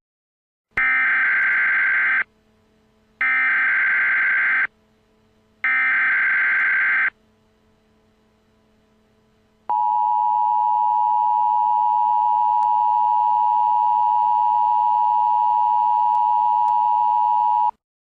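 Emergency Alert System signal: three short bursts of harsh, buzzy digital SAME header data, evenly spaced, then, after a pause, the long steady EAS attention tone, which holds for about eight seconds and cuts off suddenly near the end.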